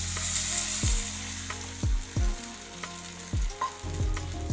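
Water poured into a hot pan of oil-sautéed vegetables, sizzling loudest in the first second and then easing off. Background music with a steady beat of deep drum hits runs underneath.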